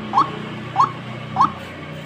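White-breasted waterhen (ruak-ruak) lure call: a short rising note repeated evenly about every six-tenths of a second, three times, over a faint low steady hum.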